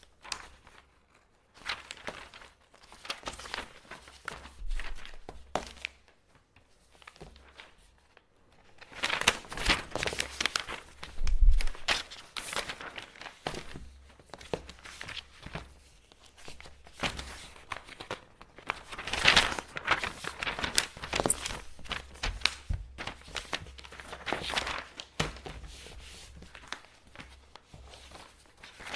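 Sheets of paper being handled and folded: irregular rustling and crinkling in bursts with short pauses between them. The busiest bursts come about a third of the way in and again near two-thirds, with a soft thud in the first of them.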